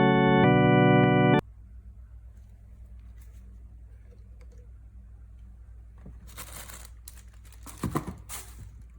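Sustained organ-like electronic chords cut off abruptly about a second and a half in. A low steady hum follows, and a few seconds of crinkling and clicking come near the end.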